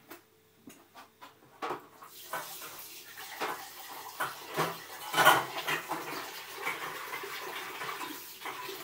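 Water running and splashing in a kitchen, with a few clinks of dishes at the start.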